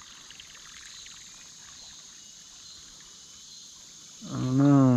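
Kayak paddle working shallow river water, with small splashes and trickles off the blade, over a steady chorus of chirping insects. A man's voice cuts in briefly near the end.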